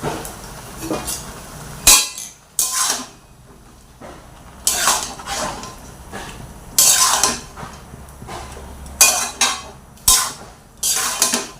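Spatula scraping and clinking against a cooking pan in short strokes as salted bottle gourd curry is stirred, about eight strokes with pauses between them.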